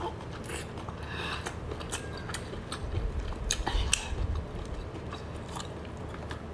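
Sticky clicks and squelches of cooked abalone being pulled from its shell by hand, with a cluster of louder knocks about three to four seconds in.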